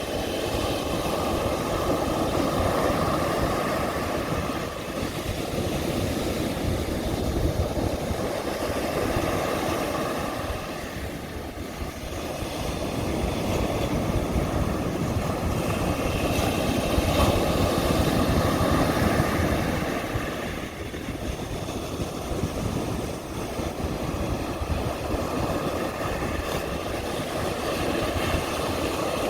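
Ocean surf breaking on a sandy beach: a continuous rush of waves that rises and falls every several seconds as each set comes in.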